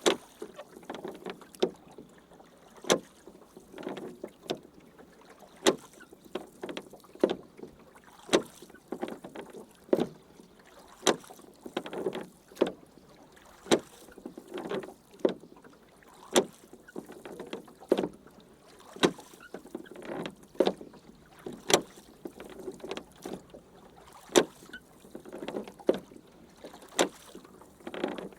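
A rowing boat being rowed: oars sweeping and splashing through the water, with a sharp knock roughly every second or so as the strokes go on at a steady rhythm.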